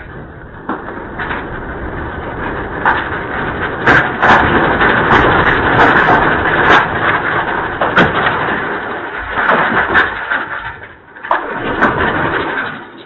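Loud, continuous rumbling with many rattles and knocks that swells and then dies away near the end, typical of a building and its contents shaking in an earthquake.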